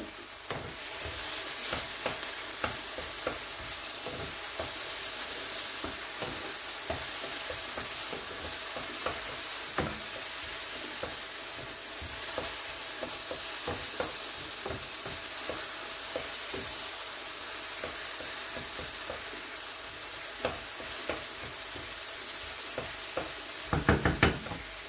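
Diced tomatoes and green peppers sizzling in oil in a frying pan while a wooden spoon stirs them, with light scrapes and clicks of the spoon against the pan. A few louder knocks come near the end.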